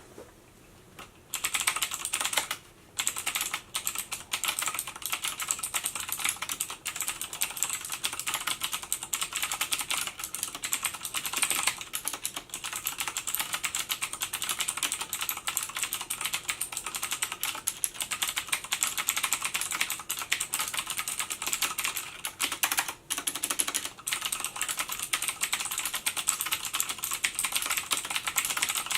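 Thermaltake Level 20 RGB Titanium mechanical keyboard with clicky blue switches being typed on fast and continuously, starting about a second in, with two brief pauses.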